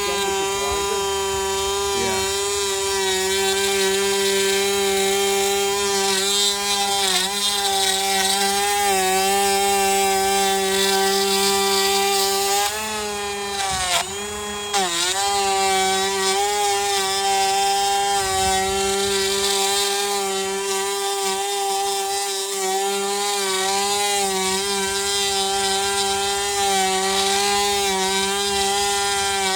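Electric woodworking power tool running at a steady, high motor pitch. About halfway through, the motor note briefly drops and sags, then comes back up to speed.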